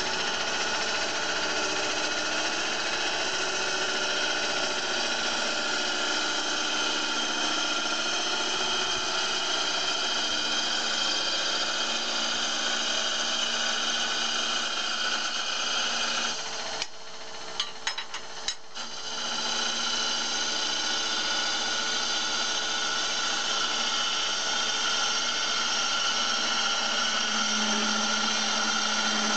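A wood lathe running while a ball-turning jig's cutter cuts a spinning wooden sphere, a steady cutting noise over the machine's hum. About 16 seconds in the cutting drops away for a couple of seconds with a few clicks, then resumes.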